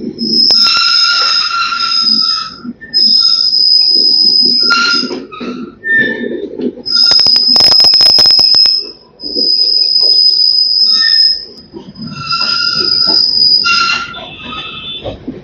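Steel train wheels squealing against the rails, a high-pitched squeal that comes and goes in spells of one to three seconds. A run of rapid clicking comes about seven to nine seconds in.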